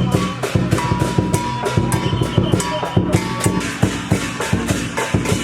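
Music with a fast, even drumbeat, about four or five strikes a second, over sustained pitched notes.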